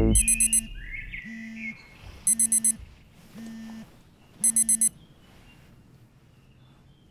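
Phone alarm beeping in quick bursts of four shrill beeps, three bursts about two seconds apart, then it stops, silenced.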